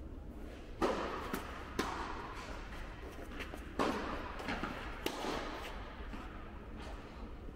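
Head Pro tennis balls struck by rackets and bouncing on a hard indoor court during a rally: several sharp, echoing pops, the loudest about a second in and about four seconds in.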